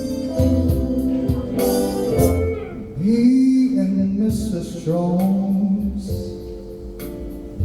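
Live cover singing: a vocalist holds long, bending notes over instrumental backing.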